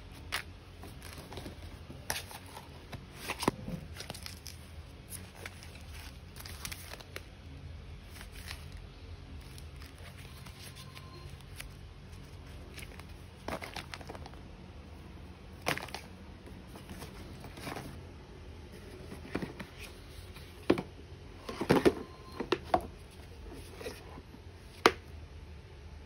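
Plastic packaging and small objects being handled and set down on the floor: scattered crinkles and light knocks over a faint low room hum, a few louder ones near the end.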